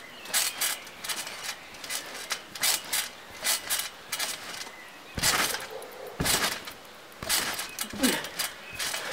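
Metal springs of a backyard trampoline squeaking and creaking under a person bouncing, a quick run of short squeaks about two or three a second, with a few heavier landings from about five seconds in.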